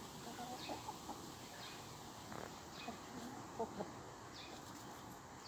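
Backyard chickens clucking softly now and then, a few short calls scattered over a quiet garden background.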